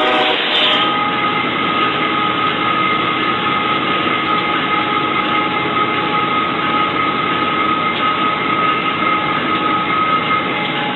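Locomotive running steadily at speed, heard from inside the cab: a loud, even rumble with a steady high whine over it.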